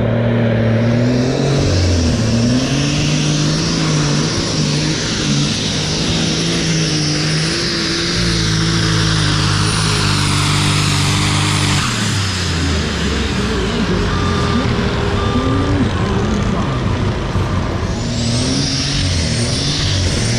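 Engines running loud and steady. A compact track loader's diesel works close by, its pitch stepping up and down as it grooms the dirt. Over it is the high turbo whine of a superstock pulling tractor revving, which fades about twelve seconds in and swells again near the end.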